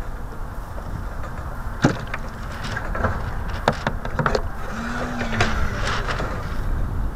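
Wind rumbling on the microphone of a camera riding on a radio-controlled model sailboat's deck, with water splashing and knocking against the hull in several sharp knocks. A short low whine sounds about five seconds in.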